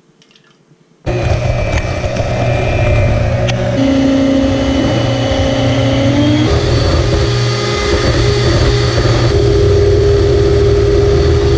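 Electric stand mixer with a whisk attachment whipping heavy cream into whipped cream. Its motor switches on about a second in and runs loud and steady, stepping up in pitch twice as the speed is raised.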